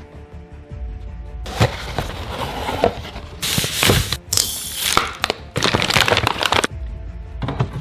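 Filament packaging being unwrapped: a foil bag around a spool of 3D-printer filament crackles and crinkles in about four loud bursts, starting about a second and a half in. Background music plays throughout.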